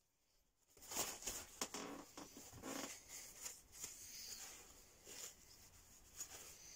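Crumpled paper shop towel crinkling and rubbing over a steel Damascus knife blade as it is wiped clean before acid etching. An irregular run of rustles and scrapes starts about a second in.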